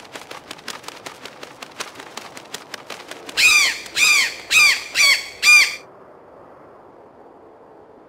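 A quick run of sharp clicks for about three seconds, then a macaw squawking five times in quick succession, each harsh call rising and falling in pitch.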